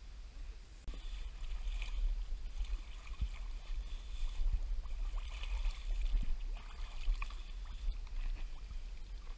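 Water sloshing and splashing around a small boat in shallow water, with a few light knocks, over a steady low rumble of wind on the microphone.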